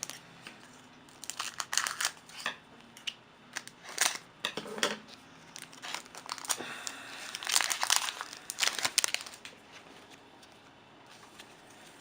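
A trading card pack's wrapper being torn open and handled, crinkling in irregular short bursts that are busiest about two seconds in and again around eight to nine seconds in, then die down.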